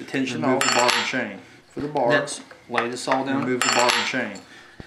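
Metal chainsaw parts clinking and rattling as they are handled and set down, with two sharper clinks, about half a second in and again about three and a half seconds in.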